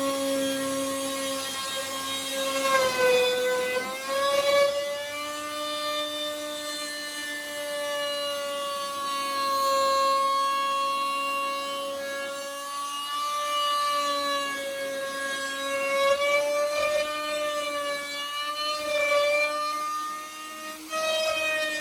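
Electric power tool running on wood with a steady high whine, its pitch sagging briefly a few seconds in and wavering later as the tool takes load.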